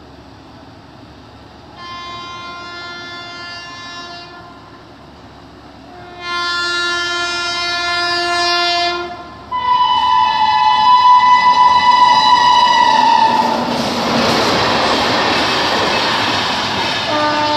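An Indian Railways locomotive horn sounds three long blasts, each a chord of several tones, growing louder as the train approaches. About thirteen seconds in, the loud noise of the LHB parcel express and its high-capacity parcel vans running past on the rails takes over, with another short horn sounding near the end.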